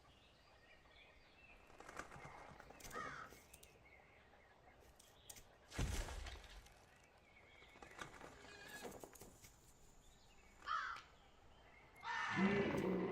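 Animal calls from an animated dinosaur film's soundtrack: several short calls spread apart, a deep thud about six seconds in, and a louder, pitched call near the end.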